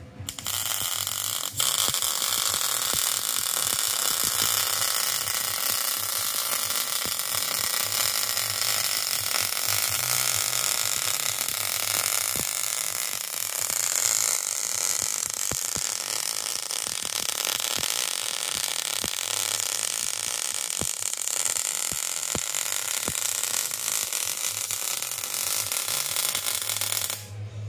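MIG welding arc crackling and sizzling steadily, with many sharp pops, from an Eastwood MP250 welder laying weld on steel brackets.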